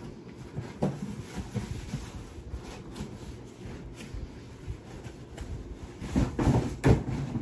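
Cardboard boxes being handled and moved about: irregular knocks, bumps and rustling, with a cluster of louder thumps about six to seven seconds in.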